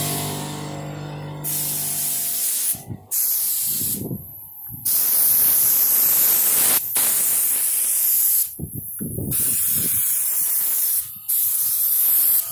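Air spray gun spraying Raptor bed liner, hissing loudly in about six bursts with short pauses between passes as the trigger is released. A machine hum fades out over the first couple of seconds.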